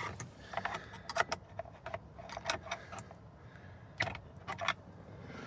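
Metal screwdriver tip clicking and scraping in the steering wheel's access holes as it is pushed against the spring bar holding the horn airbag cover. The small sharp clicks come in a run through the first three seconds and again about four seconds in.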